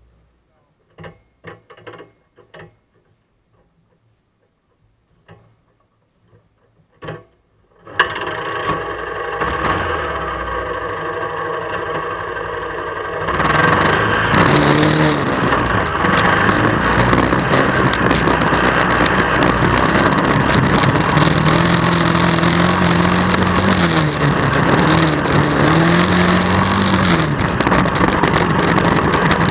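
Honda Fourtrax 300 ATV's single-cylinder four-stroke engine starting after a few quiet clicks, idling briefly, then revving up and down as the quad rides off along the trail.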